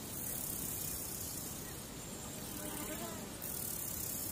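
Steady low hiss and rumble of background room tone, with a faint brief wavering sound about three seconds in.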